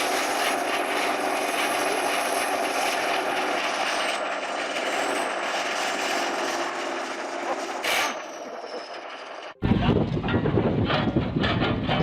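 A steady engine drone with a high whine, broken by a sharp knock about eight seconds in. Shortly after, it cuts off abruptly and is replaced by loud, gusty wind-on-microphone rumble.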